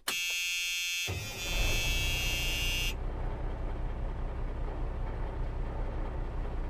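A high buzzing tone sounds for about the first three seconds and cuts off suddenly. Under it, from about a second in, comes the low steady rumble of an idling truck engine.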